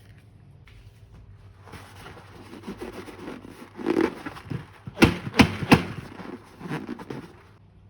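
Hands working slime and balloon materials: soft squishing and rustling, a louder squelch about four seconds in, then three sharp snapping clicks about a second apart and a few fainter ones near the end.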